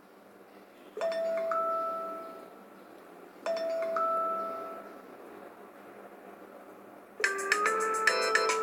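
iPhone alert tone: a two-note chime, the second note higher, played twice about two and a half seconds apart, each fading out. About seven seconds in, an iPhone ringtone of quick repeating notes begins.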